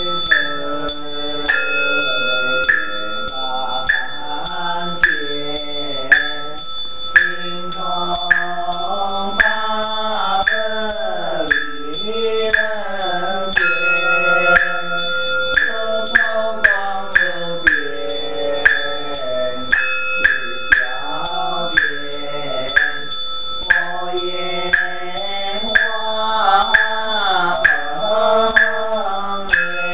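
Buddhist sutra chanting, sung in a gliding melody and kept in time by steady strikes on a wooden fish at about two beats a second, with a bell ringing over it.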